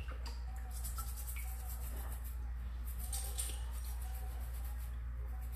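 Small quartz crystal being lifted from a tub of water and scrubbed with a small brush: faint, quick scratchy brushing strokes and small clicks of stone, over a steady low hum, with a faint wavering tone in the background.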